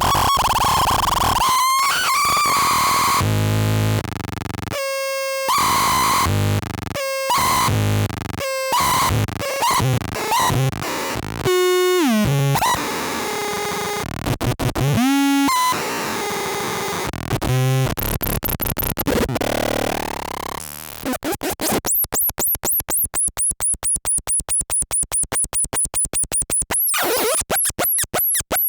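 Rumble Noise analog glitch-noise synth and fuzz pedal producing harsh, glitchy noise and squealing tones that cut in and out abruptly, with a few pitch sweeps. About two-thirds of the way through it switches to a fast, even stutter.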